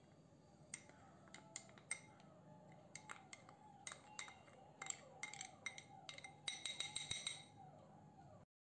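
Steel spoon clinking and scraping against a small glass bowl as custard powder is tapped out into a glass mixing bowl: faint, irregular light clinks with a brief glassy ring, coming thicker about six to seven seconds in.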